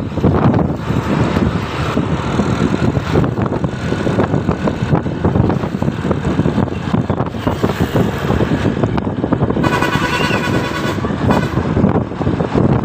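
A bus's engine and road noise run loud and steady close by. About ten seconds in, a horn sounds a short chord of steady tones lasting about a second.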